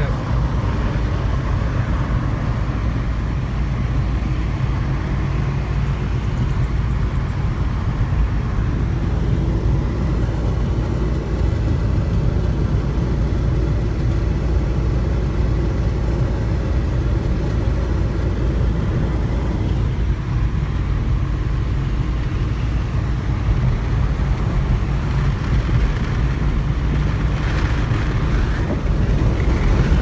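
Steady running noise of a car driving, heard from inside the cabin: engine, tyres and wind blending into a constant low rumble.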